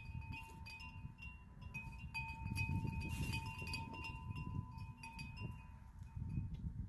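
Metal wind chimes ringing in the breeze, with several long, overlapping tones that shift slightly in pitch. Underneath is a louder low rumble of wind on the microphone.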